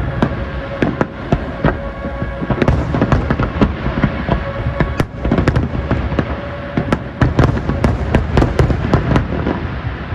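Aerial firework shells bursting in a dense barrage, many rapid overlapping bangs and booms with no gaps between them, easing off slightly near the end.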